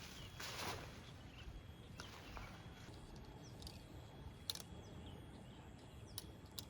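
Quiet outdoor ambience with a few faint, short, high bird chirps and some sharp clicks, and a brief rustle like a footstep about half a second in.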